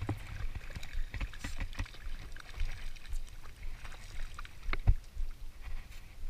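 A hooked jack being played on a fly rod from a boat: scattered clicks, knocks and splashes of handling and of the fish at the surface, with wind rumbling on the microphone. The sharpest knock comes about five seconds in.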